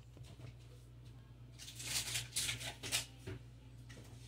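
A rubbery Halloween animatronic toy being handled by hand and set down on a hard counter: a few short scuffing rustles and light knocks in the middle, over a faint steady low hum.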